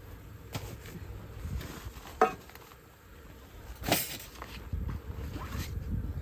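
Camping gear being handled: a few sharp clicks and knocks, the loudest about two seconds in and another about four seconds in, over a low rumble of handling noise.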